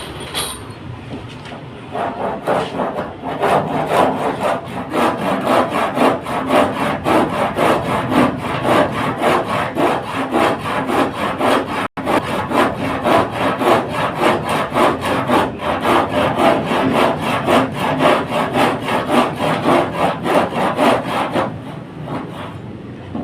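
Hand saw cutting wood with quick, even back-and-forth strokes, about three a second. The sawing starts about two seconds in and stops near the end.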